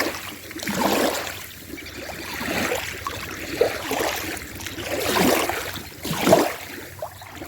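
Small waves lapping against a stony lake shore, washing in and out in soft swells about once a second.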